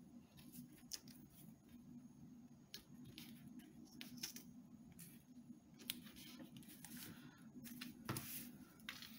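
Faint handling of a roll of purple washi tape on planner paper: scattered soft rustles and small clicks as the tape is unrolled and pressed down, with a louder rustle near the end, over a faint steady hum.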